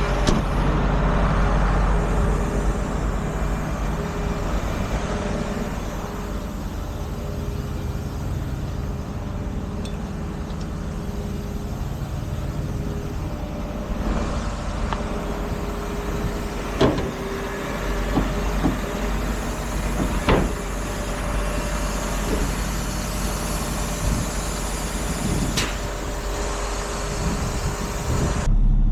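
Heavy tow truck's engine running steadily as it drives off with a truck in tow, with a few short sharp clicks along the way.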